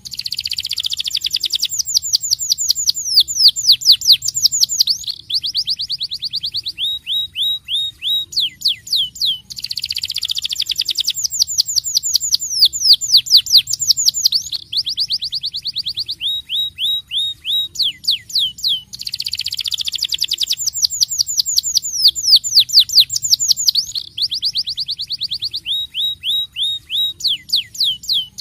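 Domestic canary singing a fast rolling song: rapid runs of downward-sweeping notes and trills, each phrase closing with slower repeated notes. The same phrase comes back about every nine and a half seconds.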